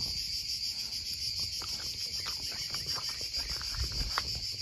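A steady, high-pitched chorus of summer insects shrilling without a break. Faint light ticks and rustles come and go over it, with a low bump near the end.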